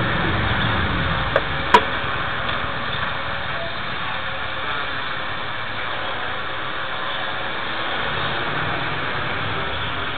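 Quadcopter drone flying overhead: a steady hum of its rotors under an even hiss, with two sharp clicks close together about a second and a half in.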